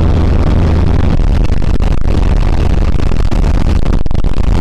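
Chevrolet D-20 pickup's diesel engine droning under way, heard from inside the cab together with the hiss of tyres on a wet road. The low drone drops lower about a second in.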